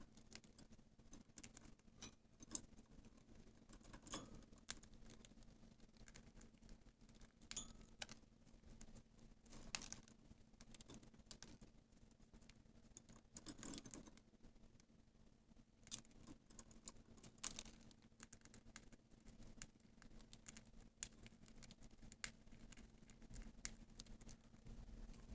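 Budgerigars cracking and husking seeds with their beaks: faint, irregular small clicks and crackles, with a few sharper cracks here and there.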